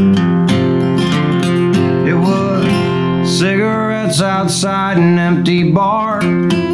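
Acoustic guitar strummed and picked in a steady solo instrumental passage, with a wavering melody line riding over it through the middle.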